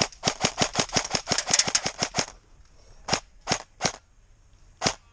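Airsoft gun firing: a rapid string of about a dozen shots, around six a second, for about two seconds, then four single shots spaced out.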